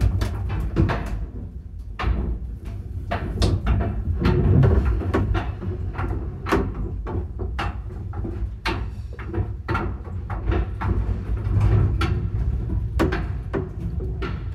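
Paternoster lift running through its machinery pit: frequent irregular knocks and clicks over a steady low rumble.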